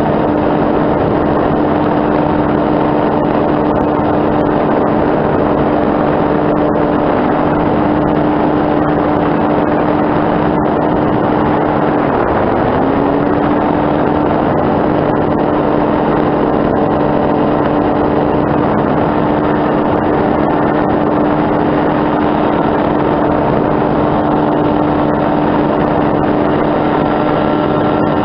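Powered hang glider's motor running steadily at cruise, a loud even engine note over a dense rush of noise. About twelve seconds in the note dips briefly and climbs back to the same pitch.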